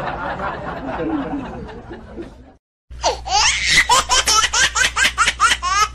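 Two laughter sound effects back to back. The first laugh fades out over about two and a half seconds. After a brief silence, a high-pitched, rapid burst of laughter starts about three seconds in and runs on, its pitch rising and falling with each quick pulse.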